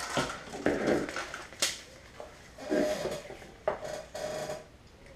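Handling noise from unboxing plastic bike shifter parts and their cardboard box: bursts of rustling and knocking, with a couple of sharp clicks about one and a half and three and a half seconds in.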